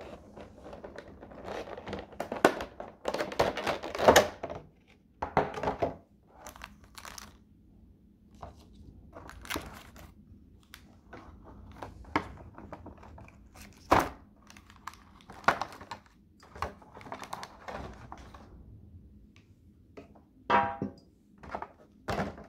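Clear plastic blister packaging crinkling, crackling and clicking in irregular bursts as a diecast model airliner is handled and lifted out of its tray, with sharp knocks now and then.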